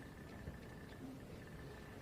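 Faint room tone: a steady low hiss with a thin, faint high whine and no distinct events.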